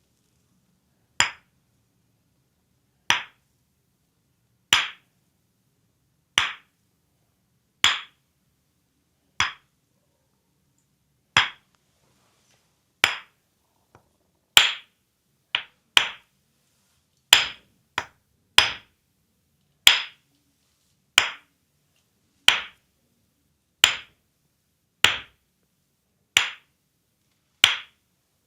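Percussive massage: hands slapping the legs in a steady rhythm, about one sharp slap every second and a half, a little quicker later with a few quick pairs.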